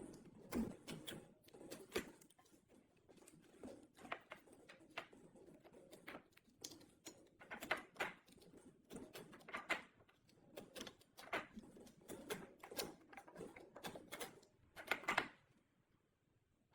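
Irregular small clicks, taps and short scrapes of hand work on small hard parts, a few strokes a second, stopping near the end.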